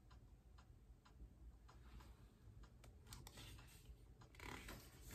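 Near silence with faint, even ticking, about three ticks a second, and a soft rustle near the end.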